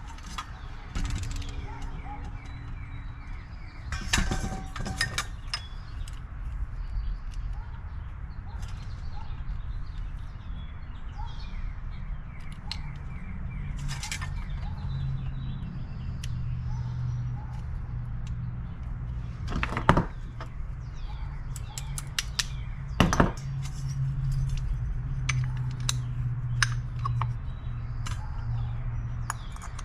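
Scattered clicks and knocks of hand work on a lawn mower carburetor, with birds chirping and a steady low hum underneath; the sharpest knocks come about 4, 20 and 23 seconds in.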